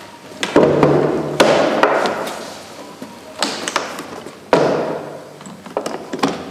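A series of heavy thuds, about five in all, each dying away over a second or so.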